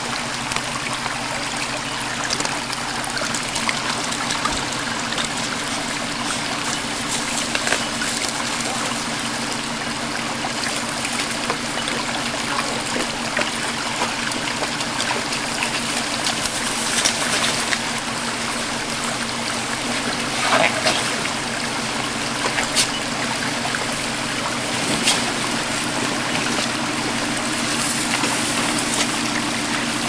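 Shallow rocky creek trickling steadily, with a four-wheel-drive's engine running at a low, steady pace underneath as it comes down the track to the crossing. A few sharp clicks about two-thirds of the way through.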